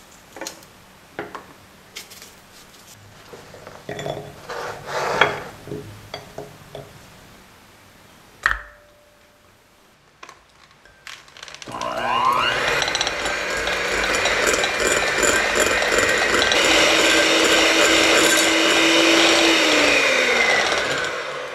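Chef's knife slicing plums on a plastic cutting board, a scattering of light taps and cuts. About halfway through, an electric hand mixer starts with a rising whine and runs steadily, beating softened butter in a glass bowl, then slows down near the end.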